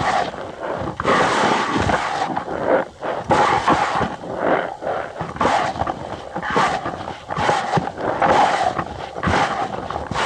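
Cornstarch powder squeezed and pressed by hand, giving a continuous run of irregular squeaks and crunches.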